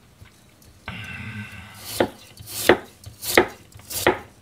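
Kitchen knife slicing through lotus root and knocking on the cutting board: four crisp cuts about two-thirds of a second apart, starting about two seconds in.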